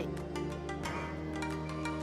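Background music with soft mallet-percussion notes over held tones.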